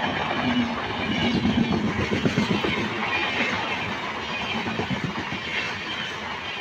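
Express train coaches passing at speed close by: a steady rush of wheel and rail noise with rapid clatter.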